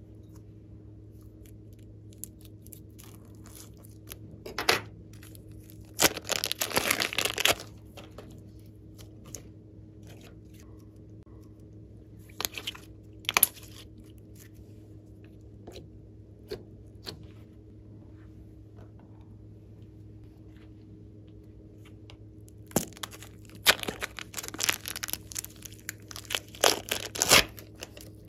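Plastic piping bags crinkling and tearing as slime is squeezed and peeled out of them, in several short bursts of crackling.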